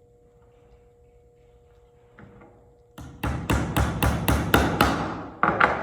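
Hammer driving a nail into a wooden toolbox kit: starting about three seconds in, a quick run of about ten hammer blows at roughly five a second, then two harder blows near the end.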